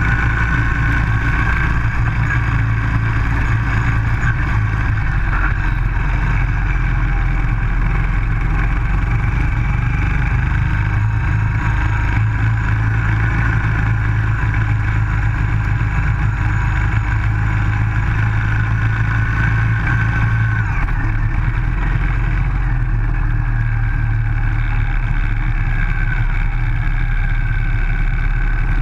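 Baja SAE off-road buggy's small single-cylinder Briggs & Stratton engine running steadily as the car is driven, heard from the car itself; its note shifts a couple of times, about 5 and 21 seconds in.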